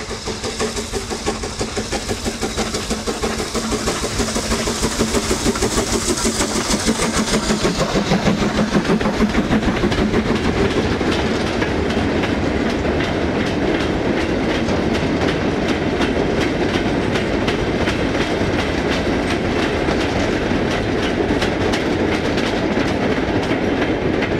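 BR Standard Class 9F 2-10-0 steam locomotive passing, its exhaust beating rhythmically and growing louder up to about nine seconds in. A long train of mineral wagons then rumbles by, its wheels clicking steadily over the rail joints.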